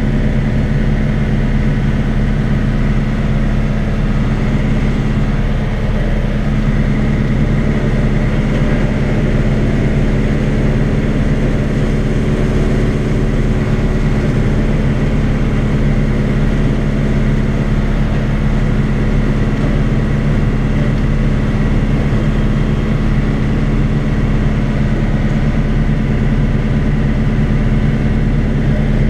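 Tractor engine and a PTO-driven Kuhn Primor straw chopper running together at a steady speed, a constant drone with a faint high whine, heard from inside the tractor cab.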